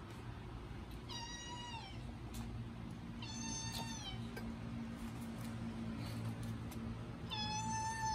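Kitten meowing three times: high-pitched calls of about a second each that drop in pitch at the end, the third starting near the end.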